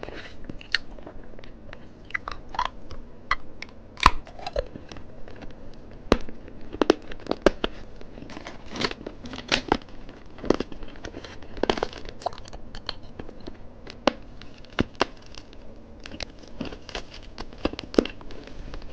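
Plastic candy wrapper crinkling and tearing as an eyeball lollipop is unwrapped, in short, irregular crackles and clicks, mixed with crunching and chewing of candy.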